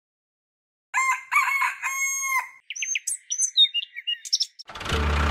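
A rooster crowing once, followed by about two seconds of small birds chirping; music starts near the end.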